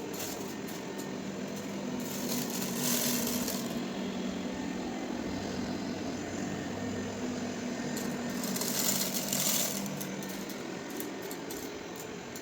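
Robot vacuum's motor running with a steady hum, with loose rice grains rattling and clattering in two bursts, about two seconds in and again near eight seconds in.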